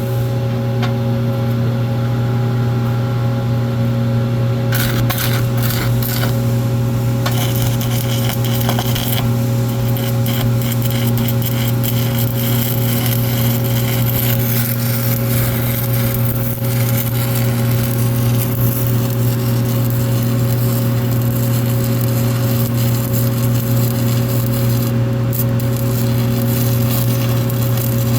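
Stick welding with a 7018 electrode: the arc starts about five seconds in and then crackles and sizzles steadily. A constant low electrical hum runs underneath.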